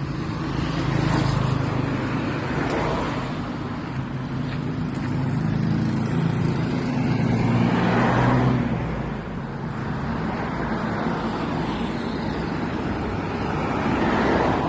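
Road traffic passing close by: several cars go past one after another, with a steady low engine hum under the first nine seconds or so.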